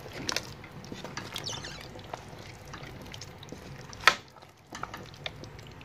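A spoon mixing pieces of meat through a pot of soup: wet squelching with scattered small clicks, and one sharp knock about four seconds in.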